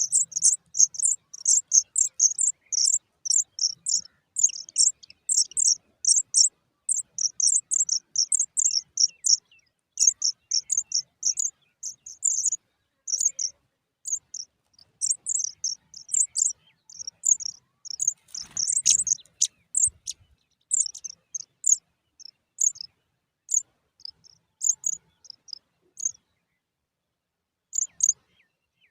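Pipit nestlings begging: a rapid run of short, very high-pitched cheeps, dense at first and thinning out toward the end.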